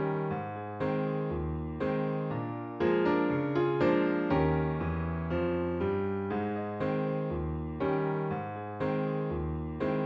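Background music: a gentle electric piano playing chords and a bass line in a steady rhythm.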